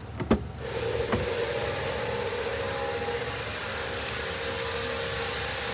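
Hyundai Elantra's 1.6-litre petrol engine idling steadily, heard up close at the open driver's door, as a constant hum with a high hiss over it. A couple of light clicks come in the first second before the steady sound settles in.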